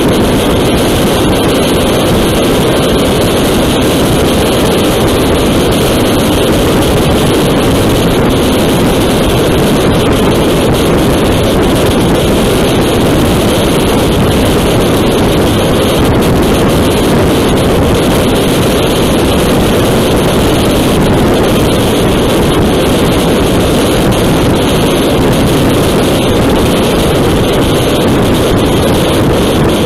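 Steady wind rush on the microphone of a motorcycle at highway speed, about 130 km/h, with the Yamaha Tracer's engine and tyre noise running evenly underneath.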